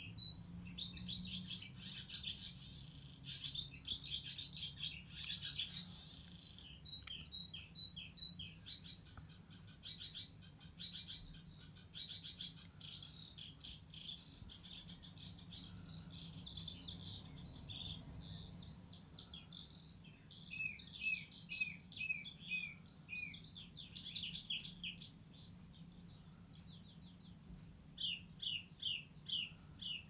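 Recorded bird song played back through a speaker: a medley of different birds' chirps, whistles and trills, with one long unbroken trill in the middle and quick runs of repeated notes near the end. A low steady hum sits underneath.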